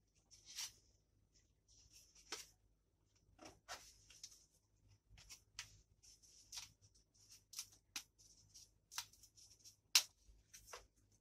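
Dry, uncooked lasagna sheets being picked up and laid in a baking dish: faint scattered clicks, taps and papery scrapes, with one sharper click about ten seconds in.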